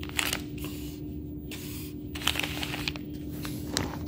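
A few light clicks and rustles, scattered through, over a steady low electrical hum.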